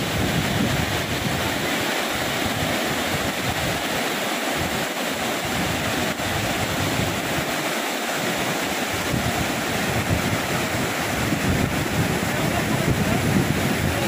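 Water spilling over a low concrete weir and rushing across a rocky riverbed: a steady, even rush. Wind buffets the microphone now and then.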